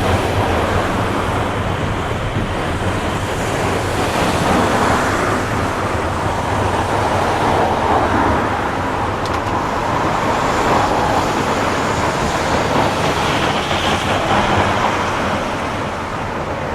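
Boeing C-17A's four turbofan engines running, a loud steady rushing roar that eases slightly near the end.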